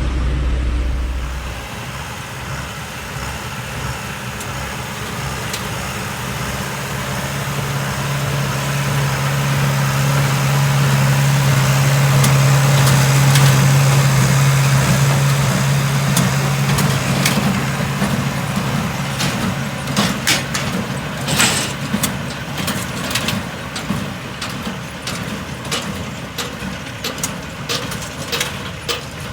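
Tractor engine running while baling hay, swelling louder and then easing off, with a string of sharp clicks and knocks from the baling gear in the second half.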